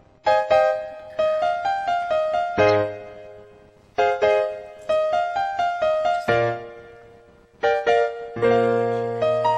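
Solo piano music: a gentle pop melody played as phrases of struck notes over low bass notes, each phrase fading before the next begins.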